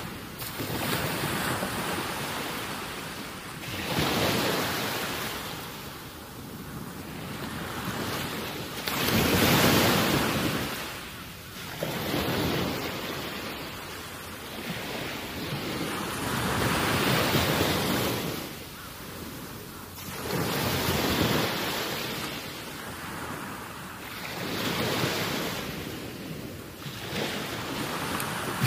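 Waves washing against a rocky shore, mixed with wind on the microphone, swelling and easing every three to four seconds.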